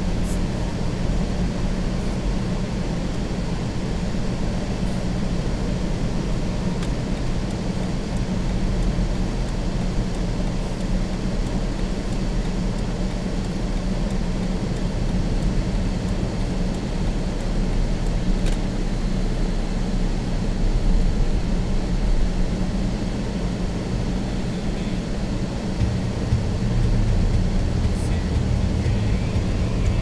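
Car cabin noise while driving: a steady low rumble of engine and tyres on a slushy, snow-covered road, growing louder near the end.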